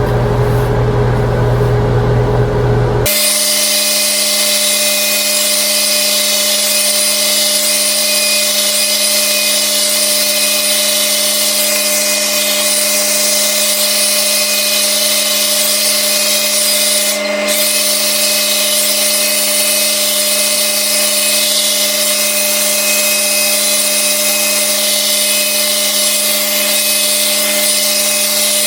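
Blow dryer brush running in her hair: a steady motor whine with rushing air. About three seconds in the sound changes abruptly, dropping its low hum and becoming a higher whine with more air hiss.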